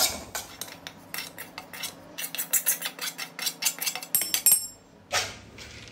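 Metal spatula scraping and tapping rapidly against an aluminium kadai, several strokes a second, while desiccated coconut powder is dry-roasted. About four and a half seconds in comes a metal clink that rings briefly.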